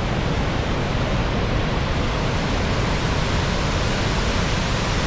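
Large tiered waterfall: a loud, steady rush of falling white water.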